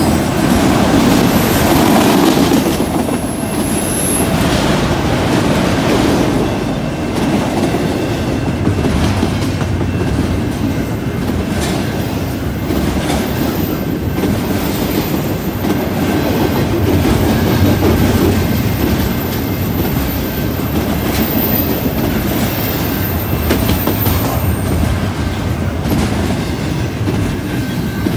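Freight train cars rolling past: a steady rumble and clickety-clack of steel wheels on the rails, as autorack cars give way to double-stack container well cars.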